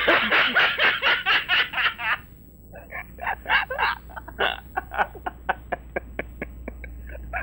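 A person laughing hard in quick, rhythmic bursts, in two bouts with a short break about two seconds in.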